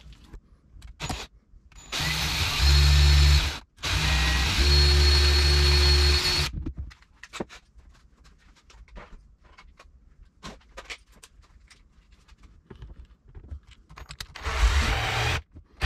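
Electric drill with a 3/4-inch bit boring a hole through a thin panel of a Sea-Doo, running in two bursts of a few seconds with a short pause between. Scattered light clicks follow, then another short burst near the end.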